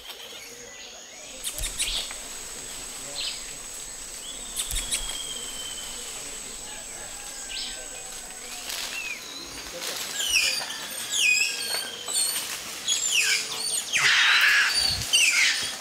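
Tropical forest ambience in a spider-monkey canopy: a steady high-pitched drone under many short, high chirping calls that come thicker and louder in the second half. A brief rustling burst comes about fourteen seconds in and is the loudest part.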